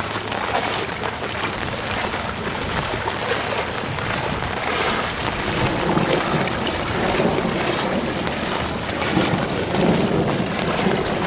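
Steady hiss of rain falling, with low rumbling gusts coming in from about halfway through.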